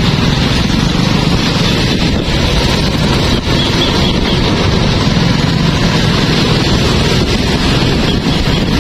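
Steady rumble of a motorcycle ride in traffic: the engine running under road noise and wind on the microphone, with the level holding even throughout.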